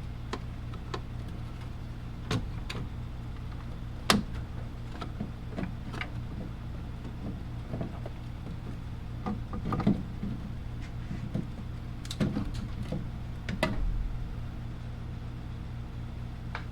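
Scattered clicks, taps and knocks of hands handling the tail light assembly and its fittings, over a steady low hum.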